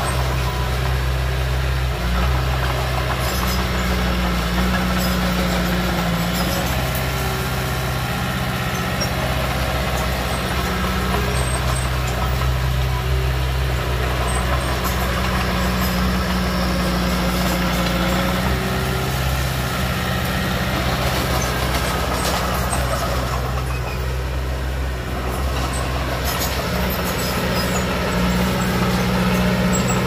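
Small crawler bulldozer's diesel engine running steadily as it pushes soil.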